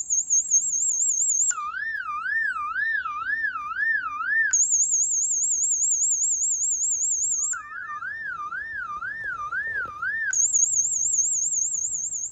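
Arlo Pro 3 security camera's built-in siren sounding. A high, fast-warbling tone alternates about every three seconds with a lower tone that warbles more slowly.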